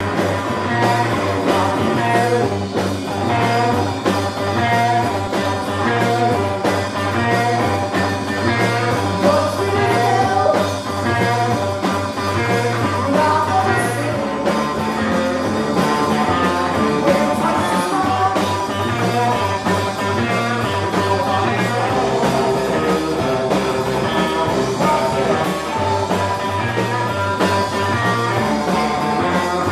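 Live rock band playing loud, steady throughout, heard through a small handheld camera's microphone.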